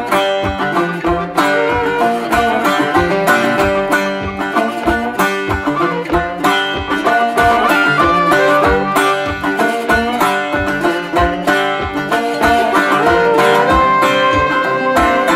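Background music: an upbeat tune of plucked strings over a steady beat of about two to three pulses a second.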